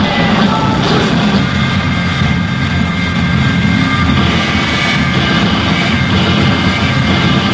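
Played-back recording of a large protest crowd: a loud, steady roar of many voices with no single voice standing out.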